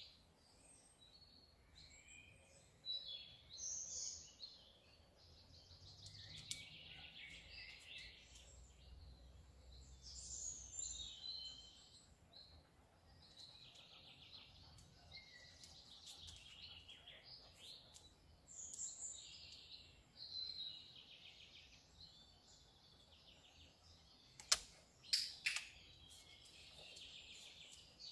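Faint garden birdsong, chirps and short phrases coming and going. Near the end, a quick cluster of sharp clicks: a dog-training clicker marking the behaviour the dog is being shaped toward.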